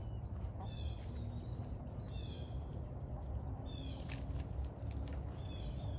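Young pullets giving high, drawn-out peeping calls, about one every second and a half, over a low steady background rumble.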